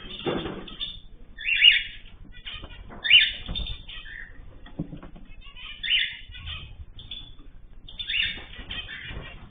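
Cage birds calling in four loud, short bursts a couple of seconds apart, among softer rustling and wing flutters.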